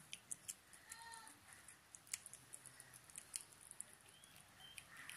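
Faint, irregular wet clicks of a kitten chewing a small snake, with a short faint call about a second in and a brief high chirp near the end.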